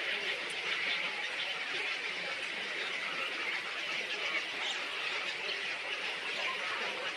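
Many small birds chattering and squeaking at once, a dense and steady chorus like a nesting colony.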